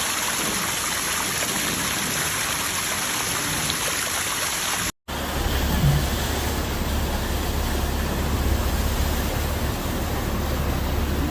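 Steady rushing of water in flooded streets, an even hiss with no rhythm. It breaks off briefly about five seconds in and resumes with a strong low rumble underneath.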